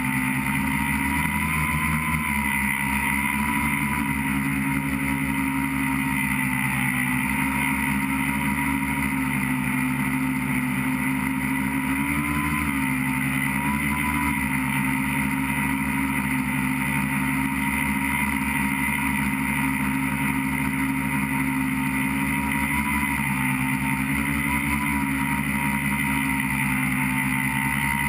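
Tricopter's three electric motors and propellers whining steadily, recorded from the onboard camera, the pitch dipping and rising slightly with throttle changes.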